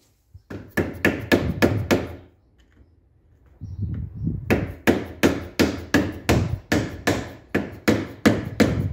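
Hammer tapping to work a seized, broken pipe fitting loose on an air compressor: a quick run of about six taps, a brief pause, then steady taps about three a second.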